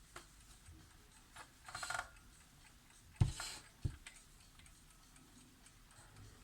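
Vintage Toyo Clox 7070 alarm clock ticking faintly, with a brief ringing rattle just before two seconds in. Two sharp, dull knocks a little over three seconds in, about half a second apart, are the loudest sounds.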